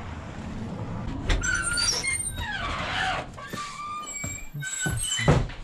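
Old shop door's hinges squealing as the door is pushed open: several short high squeaks and falling glides, with a thump near the end.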